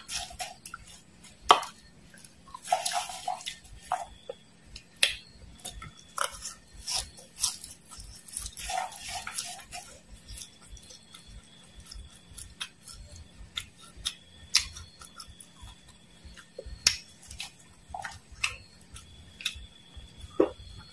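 Metal spoon clicking and scraping on a ceramic plate while stirring and scooping through a pile of dry fried worms and mole crickets, with two stretches of crisp rustling as the spoon rakes through them.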